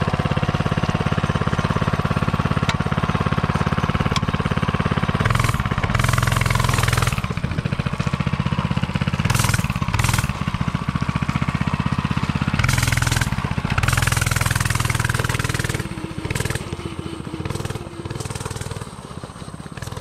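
Coleman CC100X mini bike's 99cc single-cylinder four-stroke engine running steadily, with several louder stretches as it is throttled up. It grows fainter over the last few seconds.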